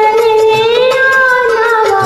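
Indian film song playing: a high singing voice holds one long wavering note over the backing, moving to a new phrase near the end.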